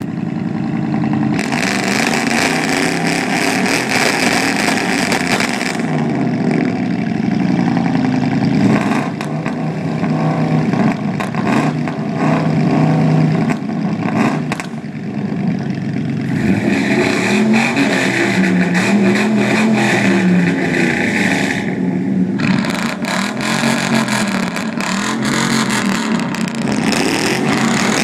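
Several pickup trucks with loud aftermarket exhausts, a Ford F-150 FX4 and a Chevy among them, revving together. Their engine notes rise and fall over one another, and twice the revving turns harsher and raspier for a few seconds.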